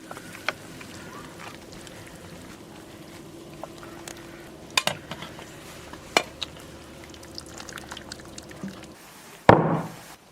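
Braised pork knuckles being lifted out of the pot of braising liquid onto a plate: a few sharp clinks of utensils on the pot and plate and liquid sounds over a steady low hum, then one loud thump about nine and a half seconds in.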